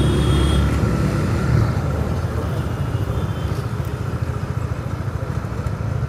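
Honda CBR150R's single-cylinder engine running steadily as the bike rides through city traffic, under a haze of road noise.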